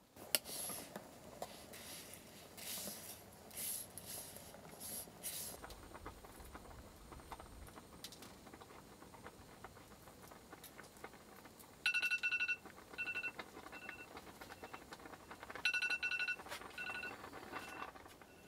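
Hand-peeling a boiled egg: scratchy cracking and crinkling of eggshell for the first few seconds. Then two bouts of short, high beeping notes, all at one pitch, about 12 and 16 seconds in; these are the loudest sounds.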